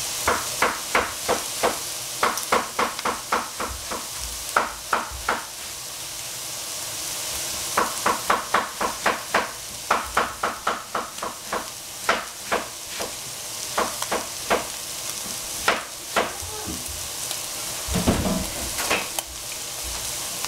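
Pork and peppers sizzling steadily in a frying pan, with runs of sharp knife strokes, about three or four a second, chopping cabbage on a cutting board.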